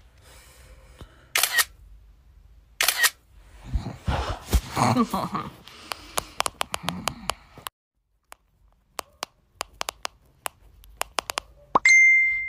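Camera shutter clicks: a rapid string of sharp clicks in the second half, after two short noisy bursts early on. A short steady beep follows near the end.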